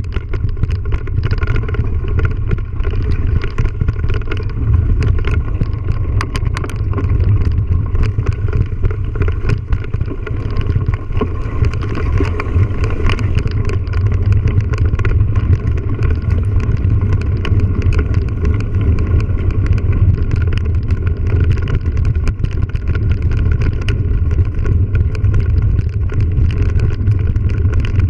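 Mountain bike ride over a rough grassy dirt track: a steady rumble of wind and rolling on the microphone, with many small clicks and rattles from bumps in the ground.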